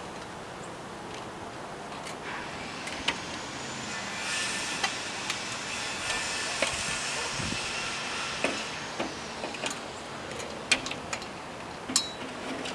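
Scattered sharp clicks and knocks of a storm window panel and an aluminium extension ladder being handled, with a hissing rush that swells and fades over several seconds in the middle.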